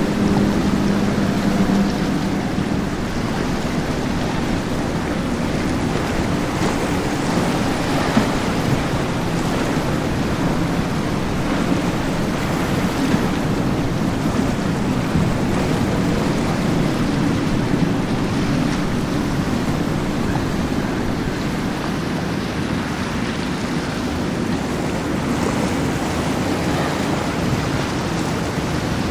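Outboard-powered boats running through choppy inlet water: a steady wash of waves and wake with the drone of the outboard motors, whose low hum is clearest in the first couple of seconds.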